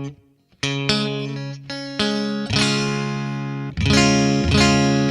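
Guitar chords strummed and left to ring. After a brief silence at the start there are about six strums, each fading slowly.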